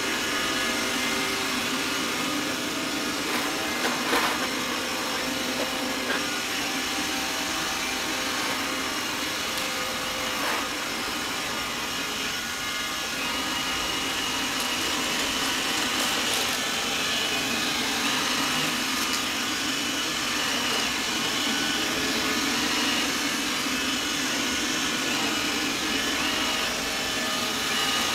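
Xiaomi robot vacuum running across a hard floor: a steady hum from its suction fan and brushes, with a high whine that grows stronger about halfway through. A few brief knocks come around four and ten seconds in.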